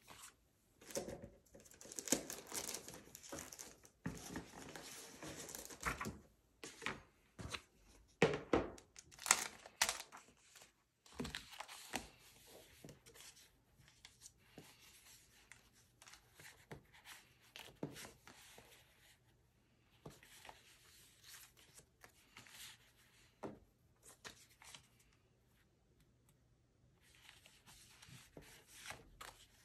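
Paper being handled close up: photo prints and journal pages rustling, sliding and being set down, loudest in the first ten seconds, with fainter rustles and light taps after that.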